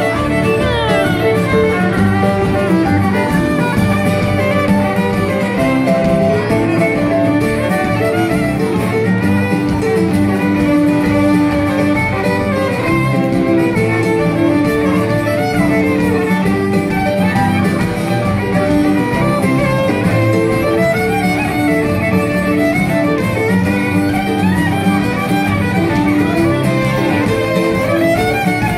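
Live fiddle tune in the Acadian kitchen-party style, with an acoustic guitar strumming the accompaniment.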